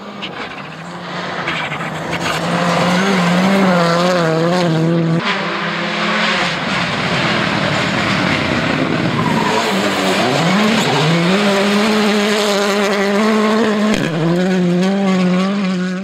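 Rally2 cars at speed on a gravel stage, a Škoda Fabia Rally2 evo and then a Hyundai i20 N Rally2, their 1.6-litre turbocharged four-cylinder engines revving hard. The pitch wavers, dips sharply and climbs again several times with lifts and gear changes, over a steady hiss of tyres on gravel.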